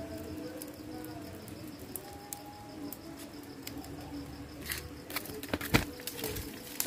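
A small fire of debris crackling, with a few sharp pops in the second half, the loudest about a second before the end.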